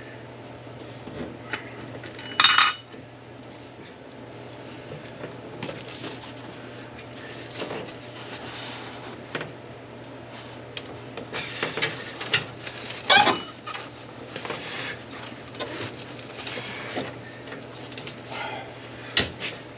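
Irregular clinks, clanks and knocks of metal parts and tools being handled while a car's trunk is reassembled. There is a ringing clink a couple of seconds in and the loudest knock about two-thirds of the way through, over a steady low hum.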